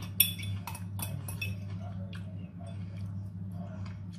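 A metal fork clinking and scraping against a glass serving dish while someone eats from it. There are several sharp clinks, most of them in the first second and a half, over a steady low hum.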